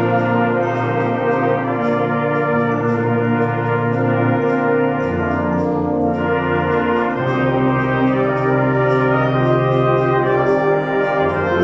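A band playing, with brass to the fore: held chords over a bass line that moves to a new note every second or two.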